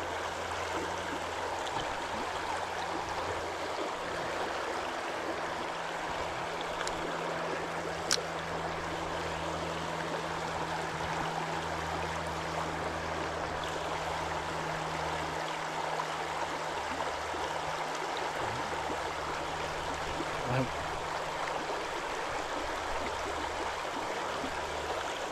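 Shallow river riffle running steadily over a rocky bed, an even rushing of water. A single sharp click about eight seconds in.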